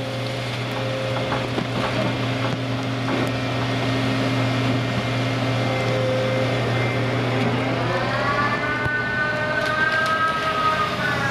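Ship-mounted hydraulic crane working a clay clamshell grab: its engine and hydraulic drive run with a steady low drone, and about two thirds of the way through a whine rises in pitch and holds as the hydraulics take on work, easing down again at the end. A few light knocks come early on.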